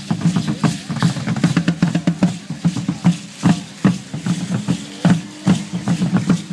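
Drumming for Aztec-style dancers: a deep drum beaten in a fast, steady rhythm, with louder accented strikes.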